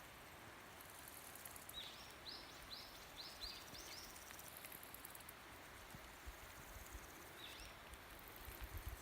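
A small bird calling faintly: a quick run of about seven short, high notes about two seconds in, then two more near the end, over faint outdoor hiss.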